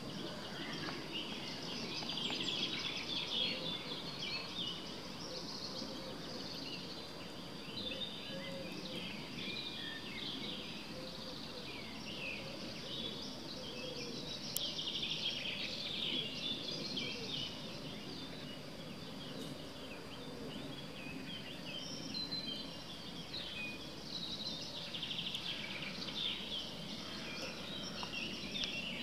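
Outdoor ambience of several songbirds singing and chirping continuously, over a low steady background noise, with a thin steady high whine.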